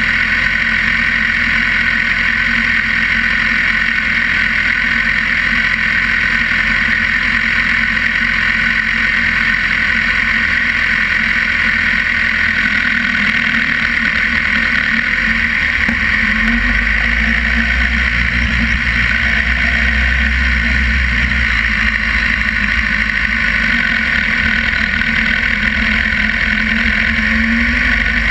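Sportbike engine idling steadily, heard from close by on the bike, under a constant high hiss. About halfway through a deeper low rumble comes in as the bike pulls away and rolls at low speed.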